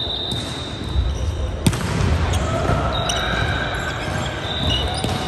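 Sports-hall ambience of volleyball play: ball thuds on the wooden floor and a sharp hit about a second and a half in, with high shoe squeaks now and then, echoing in the large hall.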